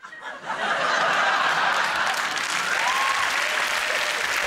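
Studio audience applauding, swelling up within the first second and then holding steady.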